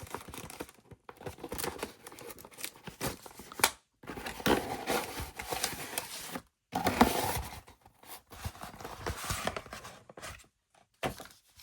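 A mail package being opened by hand: packaging tearing and crinkling in irregular rustles with scattered sharp clicks, cut off abruptly by short silent gaps a few times.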